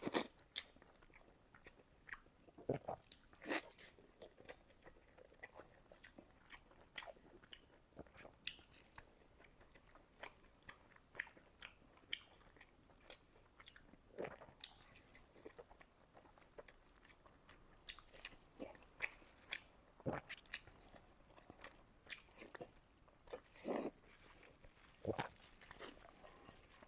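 Close-up sound of a person chewing and eating fatty pork belly: irregular short, sharp mouth clicks and smacks, spread unevenly throughout.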